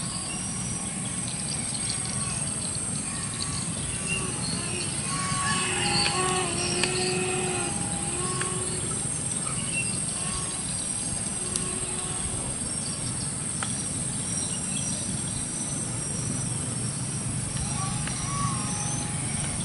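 Steady outdoor background: a continuous high-pitched insect drone over a low, even rumble, with a few faint pitched calls in the middle stretch.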